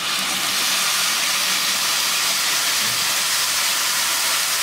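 Jaggery water pouring through a strainer into a hot pan of masala-coated bitter gourd, sizzling with a steady hiss as the liquid hits the hot pan.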